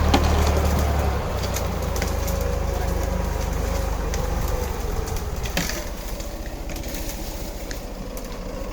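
A heavy vehicle's engine running steadily. It drops back to a lower hum about a second in. Occasional knocks sound over it, the clearest near the start and about five and a half seconds in.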